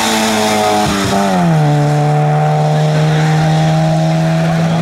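Fiat Seicento rally car passing flat out on a wet road, engine held high with a hiss of tyres on the wet surface. The engine note drops about a second and a half in as the car goes by, then holds steady as it pulls away.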